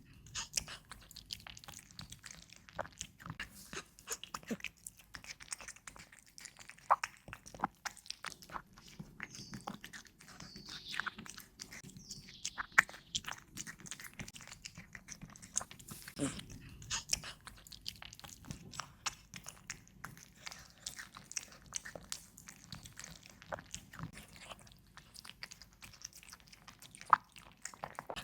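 A cat chewing and biting its food close to the microphone: a quick, irregular run of clicks and crunches.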